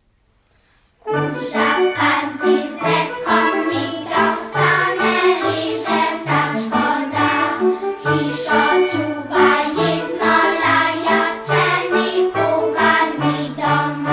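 Background music: after about a second of quiet, a lively song starts, with a steady bouncing bass line under a melody.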